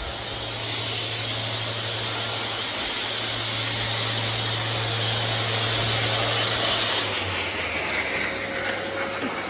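An electric workshop machine running steadily: a loud, even rushing noise over a low hum that builds gently and holds.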